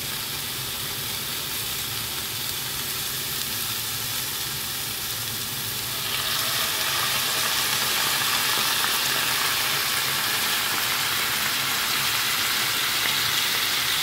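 Bell peppers, onions and green olives sizzling in a hot cast-iron skillet. About six seconds in, the sizzle grows louder and brighter as white wine is poured into the pan.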